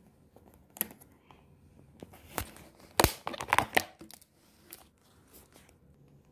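Thin clear plastic food container being handled and opened: crinkling and crackling, with a cluster of loud plastic cracks and snaps about three seconds in.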